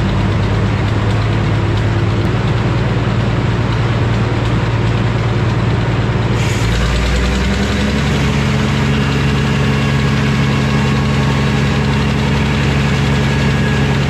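Frick circular sawmill running, its big blade spinning with a steady mechanical hum. About halfway through the blade enters a basswood log, adding a hissing cutting sound, and the drive's hum shifts in pitch under the load.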